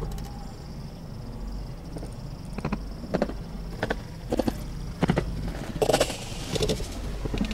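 Car engine idling steadily. From about two and a half seconds in, a string of short sharp cracks and pops comes at uneven intervals.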